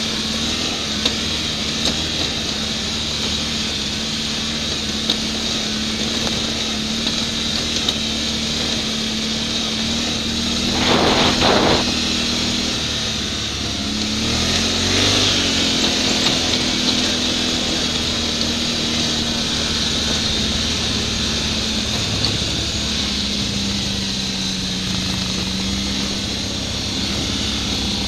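ATV engine running steadily on a trail ride. It gets louder briefly about eleven seconds in, then its pitch rises and falls around fifteen seconds in as the throttle is opened and eased off. Light clicks and knocks are scattered through it.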